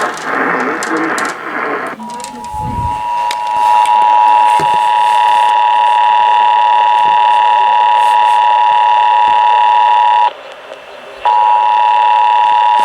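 Emergency Alert System attention signal, the steady two-tone alarm heard over a radio receiver, announcing an alert test. It comes in about two seconds in after a stretch of noisy radio sound, drops out for about a second near the end and resumes.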